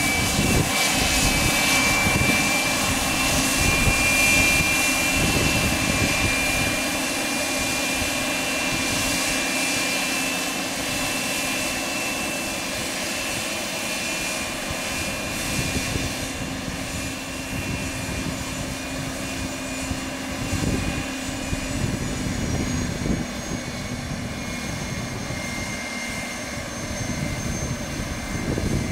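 Bombardier Challenger 350's two Honeywell HTF7350 turbofan engines running at taxi power: a steady high whine over a rumble, easing a little in loudness over the first several seconds.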